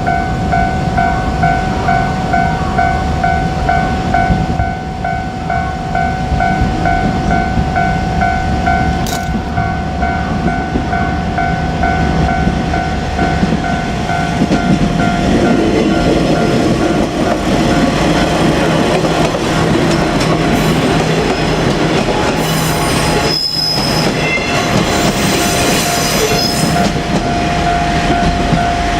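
Japanese level-crossing alarm bell ringing in a steady repeating two-tone clang, while a KiHa 47 diesel railcar comes up to the crossing with its engine and wheels rumbling louder. Near the end the passing train adds a few seconds of high-pitched noise.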